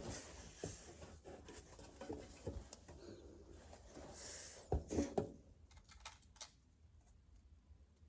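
Small clicks, taps and rustling as plastic wall anchors and screws are handled and tried in a smoke alarm's mounting base, with a few louder knocks about five seconds in, then quieter.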